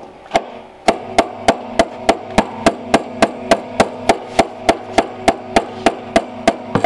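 Hammer driving a punch against the tab of a fuel pump lock ring on a steel gas tank, rapid even metal strikes about three a second, turning the ring to lock the new pump in place.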